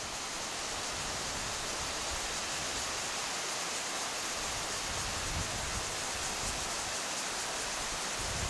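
Steady, even rush of a stream's water running down a debris-flow channel.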